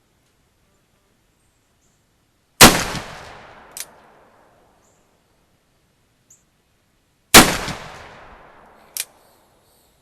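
Two gunshots from a Ruger Old Army .44 cap-and-ball percussion revolver firing conical bullets, about five seconds apart, each loud report fading over about a second. A short sharp click follows each shot about a second later.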